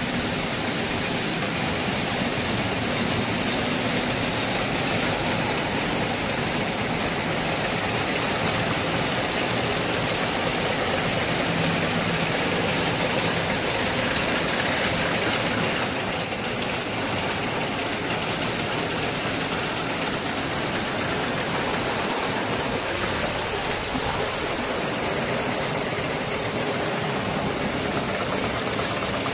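Many weaving looms running together on a tarpaulin-fabric mill floor: a loud, dense, steady machine din, slightly quieter from about 16 seconds in.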